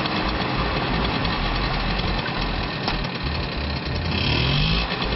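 Vintage Vespa scooter's small two-stroke single-cylinder engine running.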